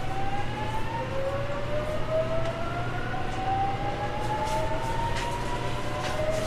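Toshiba GTO VVVF inverter of a JR Kyushu 813 series 200 subseries train whining in slowly rising tones as the train accelerates, the pitch dropping back and climbing again about a second in. Under it runs the steady rumble of the running train.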